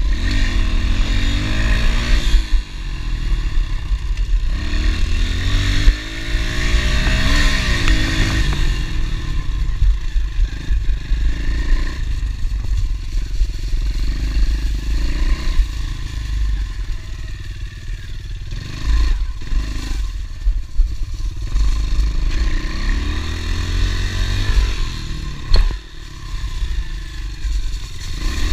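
Honda CRF110 pit bike's small single-cylinder four-stroke engine being ridden, revving up and easing off several times as it pulls through the gears, over a heavy low rumble, with a few sharp knocks from the bike on rough ground.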